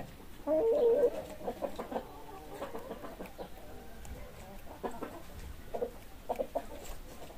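Chickens clucking in short, scattered calls, with one louder, longer call about half a second in.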